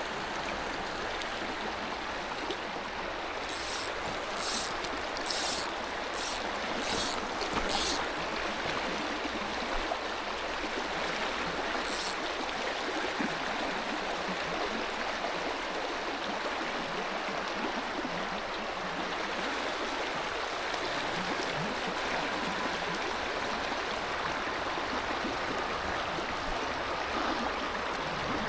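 Mountain stream flowing steadily. About six short, high hissy noises come between roughly 4 and 8 seconds in, and one more near 12 seconds.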